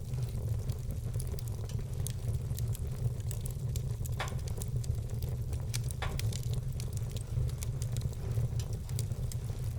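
Wood fire crackling, with a steady run of small pops and two louder pops partway through, over a steady low rumble.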